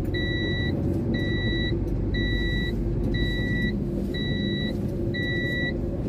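Concrete mixer truck's diesel engine running with a steady low rumble, while a reversing alarm beeps about once a second.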